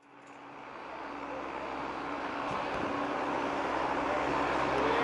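Boeing 777-200 airliner taxiing after landing, its twin turbofan engines running with a steady rushing noise and a held humming tone. The sound fades in at the start and grows steadily louder as the jet draws closer.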